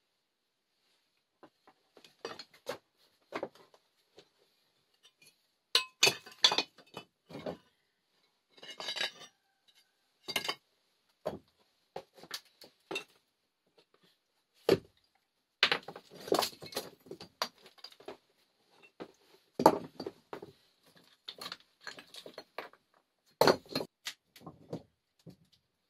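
Stones clinking and knocking against each other in an irregular series of sharp hits as they are handled and set in place, with a short scrape about nine seconds in.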